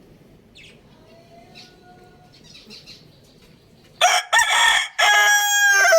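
Rooster crowing loudly, starting about four seconds in: a short broken opening, then a long held final note. Faint small-bird chirps come before it.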